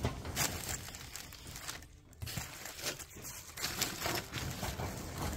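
Plastic air-pillow packing and bubble wrap rustling and crinkling in irregular crackles as hands dig through a cardboard shipping box.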